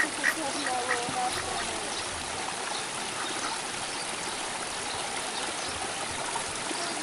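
Domestic ducks quacking in short calls during the first second or so, then fading into a steady background hiss.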